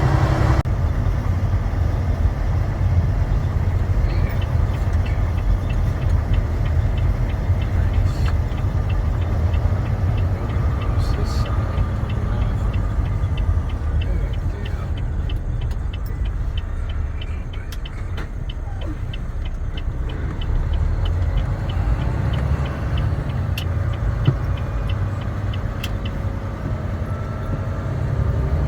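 Truck cab interior while driving: a steady low engine and road rumble, with a faint, evenly spaced ticking through most of it.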